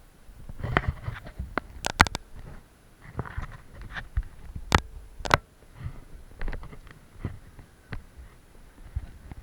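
Irregular knocks and clicks close to the microphone over a light rustle, with a few sharp ones about two seconds in and twice about five seconds in.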